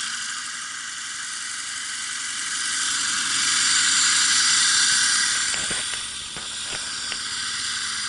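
Zhiguli (Lada) car engine running beneath a loud, steady hiss, with a few light clicks about two seconds before the end.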